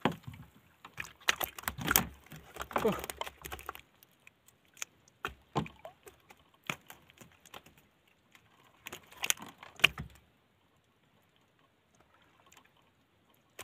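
Scattered light clicks, taps and knocks from handling a caught fish, hook and fishing line in a small wooden canoe, busiest in the first four seconds and thinning out after that.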